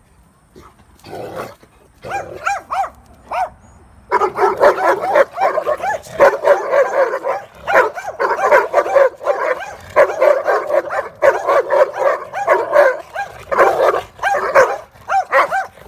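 Dogs barking at each other through a fence in a squabble: a few single high, arching barks in the first seconds, then a dense, unbroken run of high-pitched barks from about four seconds in, breaking up into separate barks near the end.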